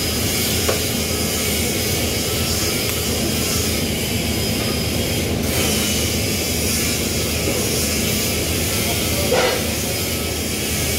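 TIG welding arc on chrome-alloy steel, a steady hiss over a low electrical hum. Two short clicks, one about a second in and one near the end.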